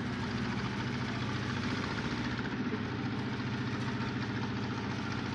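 An engine idling steadily, with a fast, even pulse and no change in speed.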